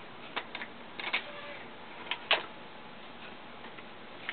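Irregular clicks and light knocks of plastic and metal airsoft rifle parts being handled as the inner barrel is worked out of the JG M4's upper receiver; the sharpest knock comes a little past halfway.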